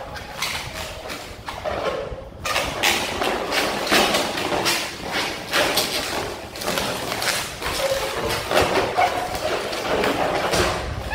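Long latex modelling balloons squeaking and rubbing against each other as they are twisted and wrapped together, in a quick run of short squeaks.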